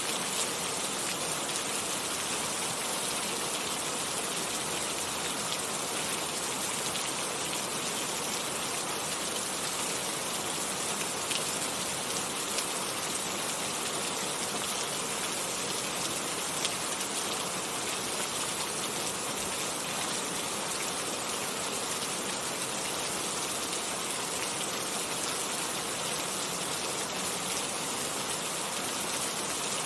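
Steady rain falling and pattering on surfaces, with scattered individual drop ticks.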